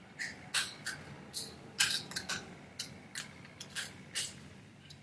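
A lobster claw's hard shell being snipped and cracked open with kitchen scissors: about a dozen short, sharp clicks and cracks at an irregular pace.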